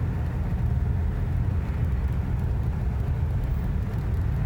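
Steady low rumble heard inside a car's cabin: engine and road noise.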